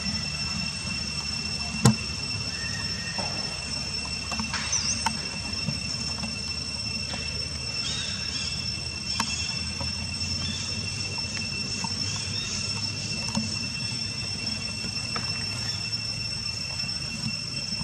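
Steady high-pitched insect buzzing, with a low steady rumble underneath and a few faint high chirps. A single sharp click about two seconds in.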